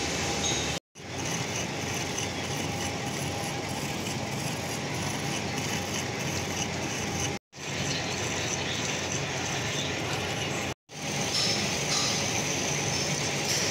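Metal-turning lathe running with its gears whirring and clattering steadily while a tool turns a steel excavator pin. The sound cuts out for an instant three times.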